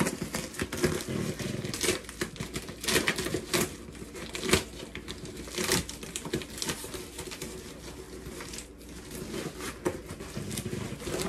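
Shiny holographic plastic mailer bag crinkling and rustling as it is handled and opened, with many irregular crackles.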